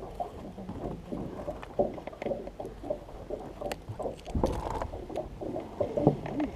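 Water lapping and sloshing against the hull of an aluminium bass boat, with scattered light knocks and clicks. It gets louder briefly about four and a half seconds in.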